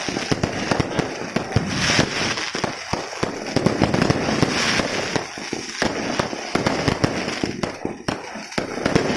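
Fireworks display: a dense, continuous barrage of sharp bangs and crackling from aerial shells and crackers going off in quick, irregular succession.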